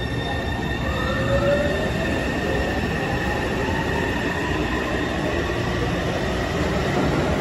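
Taipei Metro train pulling out of an underground station: a steady rumble of the wheels on the rails, with a whine from the traction motors that rises in pitch as it accelerates, getting gradually louder.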